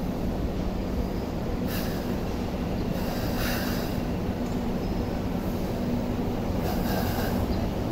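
Hong Kong MTR Light Rail Phase 1 car running slowly toward a stop: a steady low rumble of wheels on rails with a steady hum. Short higher hissing noises come in about two, three and a half, and seven seconds in.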